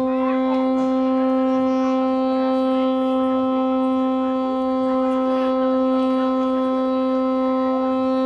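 One long blast on a traditional Naga horn, a single low note with many overtones, held steady without a break.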